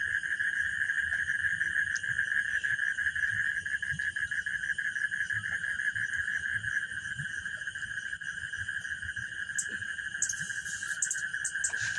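A steady, rapidly pulsing trill of night insects, high-pitched and unbroken. There is a brief high crackle about ten seconds in.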